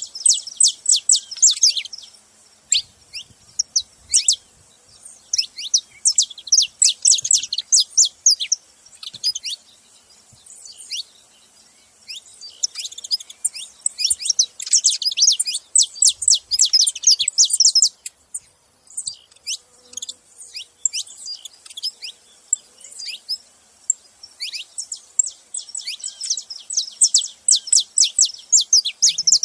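Saffron finches (canário-da-terra) singing: quick runs of high, sharp chirping notes in phrases of a few seconds, with quieter gaps of scattered notes between the phrases.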